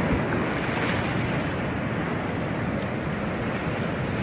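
Heavy ocean surf breaking and washing directly against a concrete seawall terrace, the beach sand having been stripped away, with a swell of hissing spray about a second in. Wind buffets the microphone.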